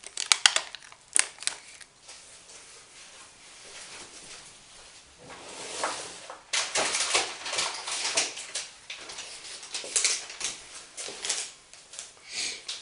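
Plastic parts bags crinkling and rustling as they are handled, with sharp crackles. It eases off about two seconds in and grows busy again past the middle.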